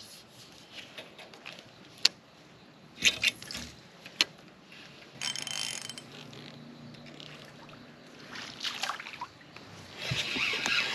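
Fishing rod and spinning reel being handled on a boat deck: sharp single clicks and knocks, with a few short rattling stretches of the reel being cranked, the longest near the end.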